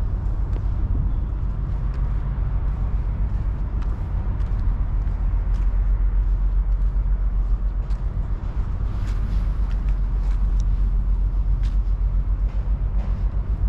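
Outdoor city ambience: a steady low rumble, with scattered faint clicks throughout.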